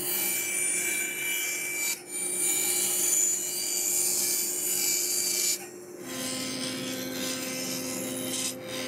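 Bandsaw running and ripping a strip of African blackwood, with a steady machine hum under the cut. About six seconds in it gives way to a benchtop jointer running as the board is fed across its bed, a different steady hum.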